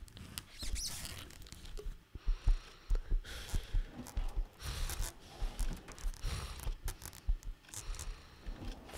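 Close, detailed foley for a crawling snail: small irregular clicks, crackles and rustles, with soft low thumps joining about two seconds in.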